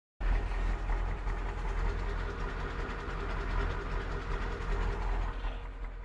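Engine of a heavy work vehicle running, a steady deep rumble that starts abruptly and eases off slightly near the end.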